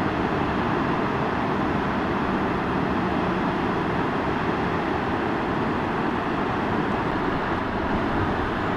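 Steady rushing roar of the Skeena River in flood, fast brown water churning through rapids around the bridge piers.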